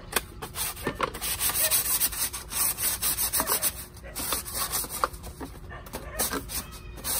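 Bamboo slats being hand-sanded with a sandpaper pad, in repeated rasping strokes. There is a short pause about four seconds in.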